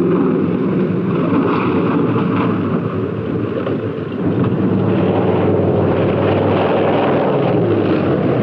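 Biplane's radial piston engine running in a steady drone with wind noise over it, easing off briefly about three seconds in and picking up again about a second later.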